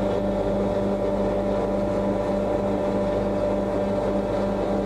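Steady mechanical hum from a machine running continuously, holding an even pitch with no change.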